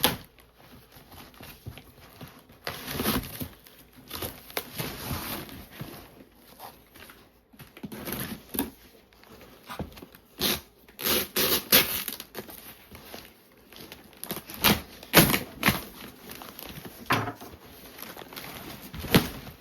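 Cardboard shipping box and packing material being torn open and handled: irregular tearing, crinkling and scraping with sharp knocks scattered throughout.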